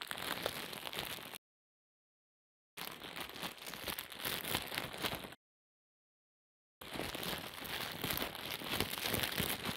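Dense crackling, crinkling noise made of many tiny clicks, in three stretches with dead silence between them: it stops about a second and a half in, returns near three seconds, stops again just after five seconds and comes back near seven seconds.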